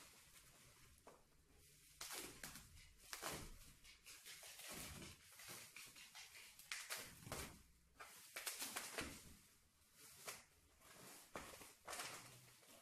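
Faint plastic bubble wrap rustling and crinkling in irregular bursts as it is pulled off a large canvas painting.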